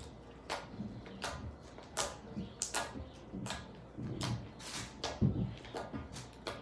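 Homemade glue-and-detergent slime being squished and pulled in the hands, giving irregular sharp clicks and wet pops, about two a second.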